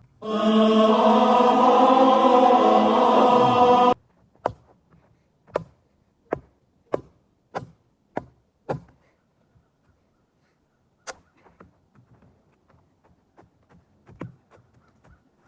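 A loud burst of choir-like singing lasts about four seconds. It is followed by a run of sharp knocks, about seven in five seconds, as blows land on a computer mouse, then one more knock and a few faint clicks.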